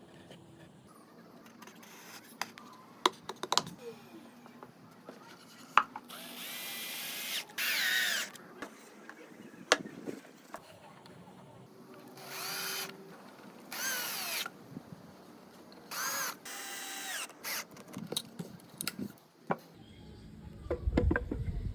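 Electric drill run in about five short bursts of a second or so, its pitch rising and falling with each run, with knocks and clicks of wood being handled between them. A deep rumble comes near the end.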